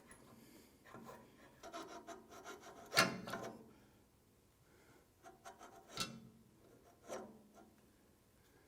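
Handling at the table saw: a metal setup gauge and tools scraping and rubbing across the saw table, with sharp knocks, the loudest about three seconds in and others about six and seven seconds in.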